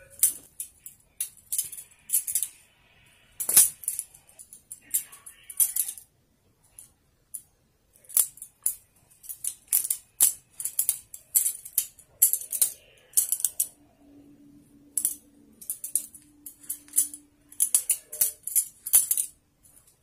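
Practice balisong (butterfly knife trainer) being flipped: quick, irregular metallic clicks and clacks as the handles and blunt blade swing around the pivots and knock together. The clicking stops for about two seconds a third of the way in, then starts again.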